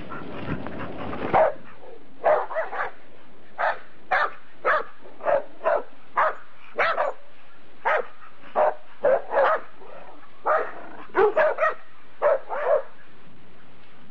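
Dog barking over and over in play, about twenty short, separate barks at uneven intervals. It follows a second and a half of rough noise at the start.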